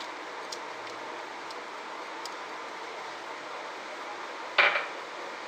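A few light ticks from spices being tipped out of a small glass jar into a ceramic bowl, over a steady low hiss. About four and a half seconds in comes a single sharp knock that rings briefly.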